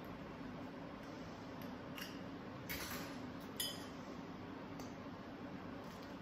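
Faint crinkling and small clicks of a champagne bottle's foil and wire cage being worked off the neck, a few short scratchy sounds about two to four seconds in, over a steady low hum.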